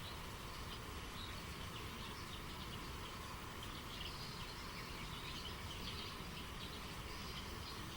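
Steady flowing stream water with small birds chirping, short repeated high chirps scattered throughout.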